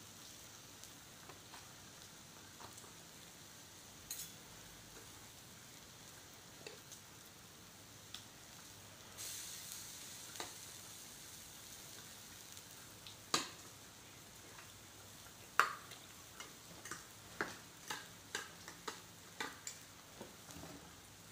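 Faint steady sizzling of pork slices cooking on a tabletop electric grill pan beside a steaming hot pot, with spoons and forks clicking against plates and bowls, two sharper clicks in the middle and a quick run of light clicks near the end.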